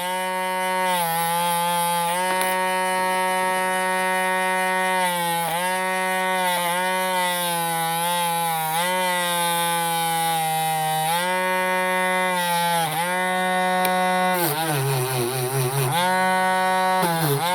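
Small high-speed electric rotary tool running steadily while brushing and polishing surface rust off a small steel part; its pitch drops each time it is pressed onto the work, about eight times, with a longer, wavering dip near the end.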